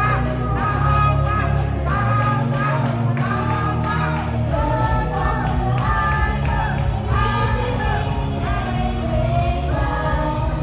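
Pop song with a melody sung over a full backing track with a steady beat.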